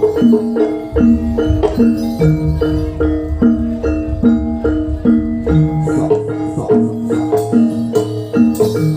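Javanese gamelan playing jaranan accompaniment: metal-keyed mallet instruments strike a fast repeating melody in short ringing notes, with a low drum pulse under it for the first several seconds.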